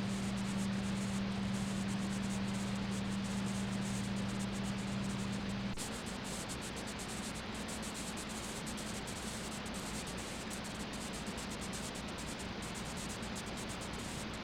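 Steady hiss from the recording's noise floor, with a low electrical hum that drops away about six seconds in.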